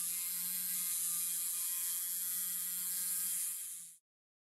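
Proxxon FBS 240E precision drill/grinder's small DC motor running at a steady speed: a high whir over a low hum, fading out near the end.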